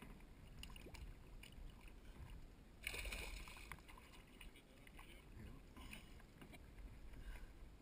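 A faint small splash in the pond water about three seconds in, among light water and boat noises.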